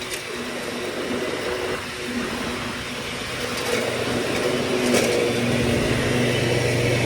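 1997 MTD Yard Machines riding lawn mower's engine running steadily while mowing, getting louder about five seconds in, with a brief sharp click at about the same moment.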